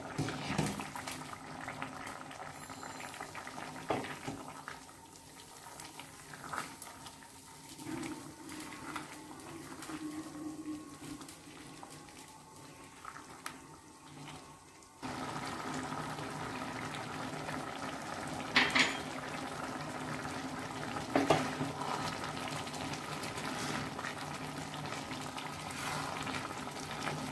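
Pan of chana dal curry simmering and bubbling. A glass pot lid clatters as it is lifted at the start, and later a spatula knocks twice against the pan while stirring.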